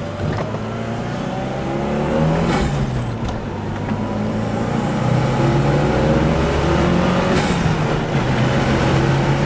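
Turbocharged four-cylinder of a 1995 Mitsubishi Eclipse GSX accelerating through the gears, heard from inside the cabin. The engine note rises, then the stock blow-off valve vents with a short whoosh at each lift-off for a shift, about two and a half seconds in and again about seven and a half seconds in.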